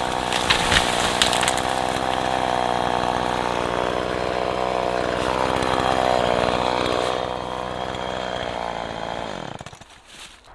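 Husqvarna 340e two-stroke chainsaw running at high speed while felling a chestnut tree, with a few sharp cracks in the first second. The engine note wavers under load around the middle, then dies away near the end.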